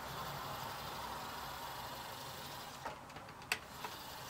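Technics SL-PD647 five-disc CD changer's carousel motor turning the disc tray, a faint steady whir that eases off after about two seconds, followed by a few short clicks near the end as the mechanism settles.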